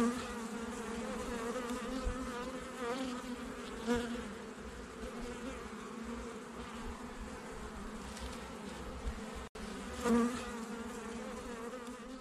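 Honeybees buzzing around an open hive: a steady droning hum that swells briefly a few times. It cuts out for an instant about nine and a half seconds in.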